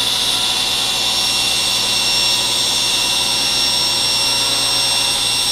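Table saw running steadily as a board is fed through its blade along the fence: a loud, even whine with high steady tones.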